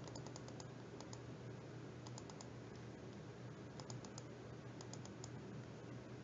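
Typing on a computer keyboard: short runs of light key clicks, a few at a time with pauses between.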